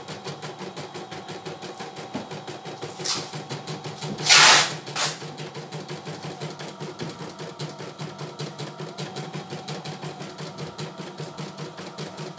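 CNY E900 computerised embroidery machine stitching a design, its needle going at a rapid, even beat over a steady motor hum. About four seconds in, a short, loud burst of noise stands out over the stitching, with smaller ones just before and after it.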